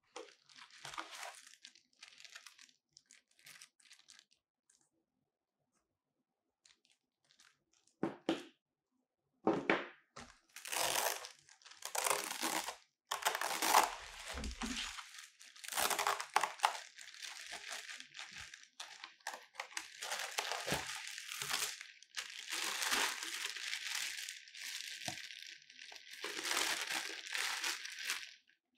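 Plastic wrapping crinkling and rustling as a plastic-wrapped stand is unstrapped and lifted out of a foam-lined carry case. Only faint scattered handling sounds at first, then dense, loud crinkling from about ten seconds in.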